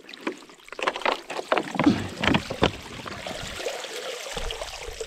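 Water splashing and sloshing in a hole in river ice as a plastic bottle tied to a fishing line is pulled up, with a few knocks from handling. Water then runs off the bottle as a steady rush and stops suddenly about four seconds in.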